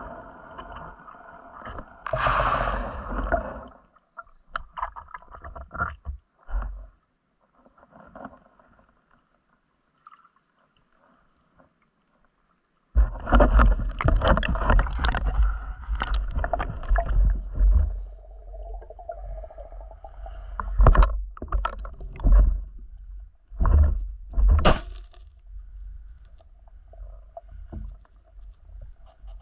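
Water sloshing and gurgling as a diver moves through shallow water, with knocks and low rumble from the camera being handled. There are several seconds of near silence about a third of the way in, then the rumble and knocks come back louder.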